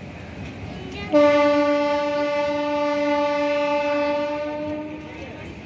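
A locomotive horn sounds one long steady blast of about four seconds, starting abruptly about a second in, over the rumble of passenger coaches rolling past.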